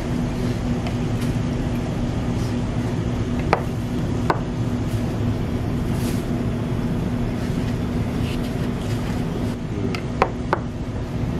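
Steady low hum of restaurant room noise with a faint steady tone, broken by a few sharp clicks of metal chopsticks against the tableware, twice in the first half and twice near the end.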